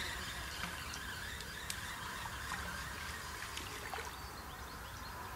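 A spinning reel winding in a feeder rig, heard only as a few faint clicks over a quiet steady background hiss.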